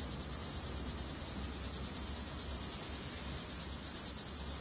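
Loud, steady chorus of insects: a shrill, high-pitched buzz with a fast, even pulse.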